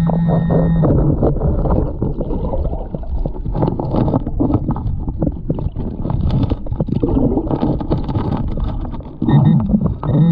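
Muffled underwater noise from a submerged camera: water churning, with gravel and stones clicking and scraping as a gloved hand works the creek bed. A steady humming tone with overtones sounds for about the first second and again briefly near the end.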